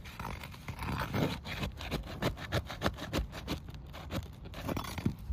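Repeated scraping and clicking as a tool is worked under an asphalt roof shingle to pry out its roofing nails.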